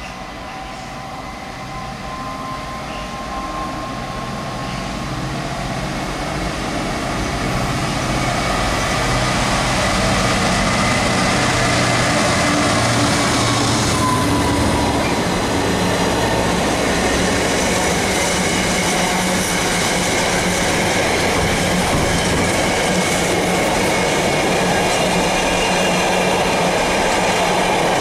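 A train approaching and passing close by on the railway, growing louder over the first ten seconds or so and then running loud and steady.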